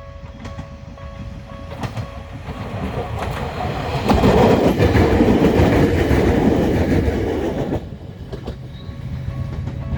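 A two-car Bessho Line 6000 series electric train passing close by. The rush of its wheels and running gear builds, with clickety-clack over rail joints, is loudest from about four to eight seconds in, then falls away. A level-crossing warning bell rings steadily beneath it and comes through again near the end.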